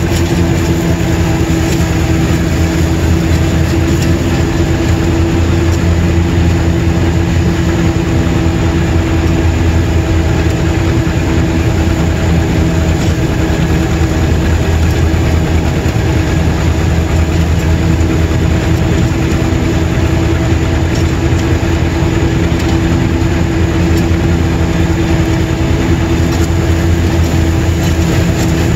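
John Deere 630's two-cylinder engine running steadily while mowing with a LandPride finish mower. The tone stays even throughout.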